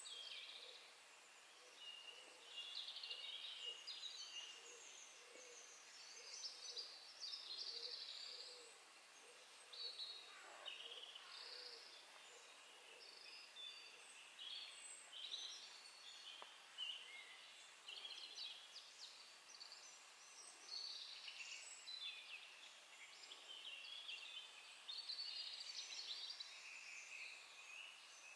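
Small songbirds singing faintly: short, high, thin warbling phrases, each a second or two long, following one another with brief pauses.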